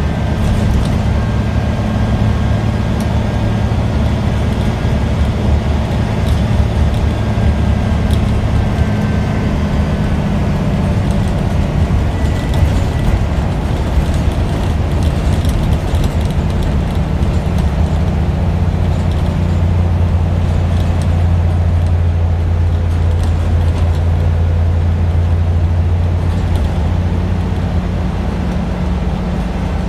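Scania Omnidekka double-decker bus's diesel engine running, heard from inside the bus as a loud, steady low drone. Its pitch pattern shifts about ten seconds in, and the low drone grows stronger for several seconds after about twenty seconds.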